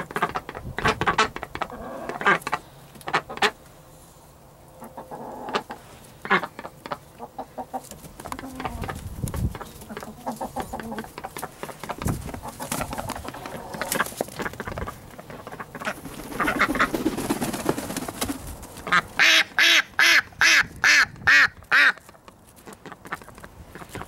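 Chickens calling and rustling in straw bedding, with scattered short clicks and calls. Near the end a duck quacks loudly about eight times in quick succession.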